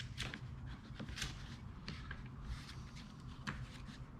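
Faint rustles and light taps of a lightweight projector being handled, over a low steady hum.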